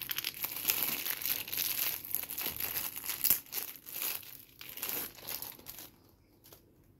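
Clear plastic bag crinkling and rustling as hands work a toy part out of it; the crinkling stops about six seconds in.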